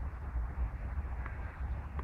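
Wind rumbling on the microphone, an uneven low buffeting, with a faint short chirp a little after a second in.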